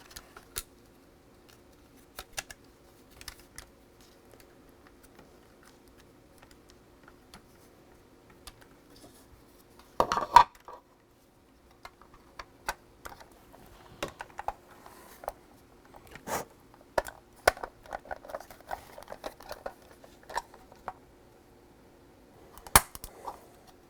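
Clicks, taps and light rattles of the plastic joystick housing and parts being handled and fitted back together, with a louder clatter about ten seconds in and a sharp knock near the end.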